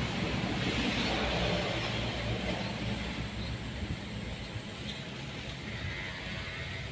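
A motor vehicle's engine passing on the road, fading away over the first few seconds and leaving a steady hiss.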